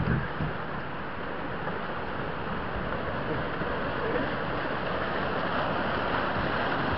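Water rushing steadily through the white-water chute of a river weir.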